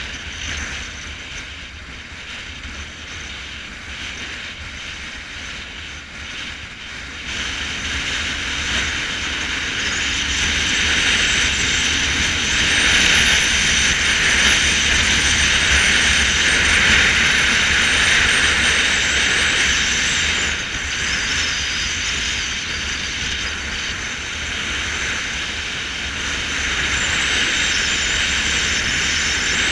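Motorcycle riding along a road, heard from the bike: steady engine and rushing wind and road noise. It grows louder about seven seconds in and again around ten seconds, eases off around twenty seconds, and picks up again near the end.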